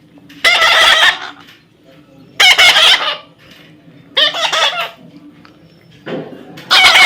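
Parrot giving loud, harsh squawks, four in a row, each about half a second long.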